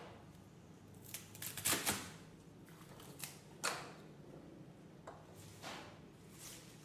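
Leafy stems of water morning glory rustling and brushing against a wooden cutting board as a hand handles and spreads the bunch: a series of short rustles, the loudest cluster about two seconds in.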